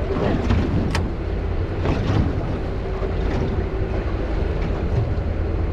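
Small boat under way at speed: a steady motor drone under heavy wind buffeting the microphone, with water rushing past the hull.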